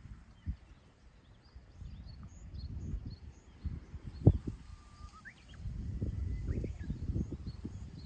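Wind buffeting the microphone in uneven gusts, with one sharp knock about four seconds in. Small birds chirp faintly over it, with short high notes and a few whistled calls.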